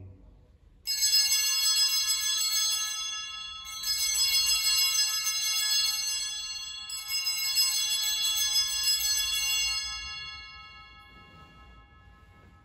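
Sanctus bell rung three times, about a second, four seconds and seven seconds in, at the elevation of the chalice after the consecration. Each stroke is a bright cluster of high ringing tones that lingers and slowly fades away.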